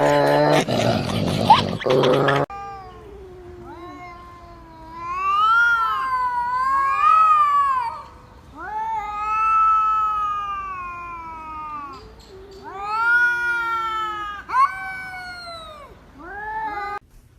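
A cat yowling in about five long, drawn-out calls, each rising and then falling in pitch, after a short stretch of music at the start.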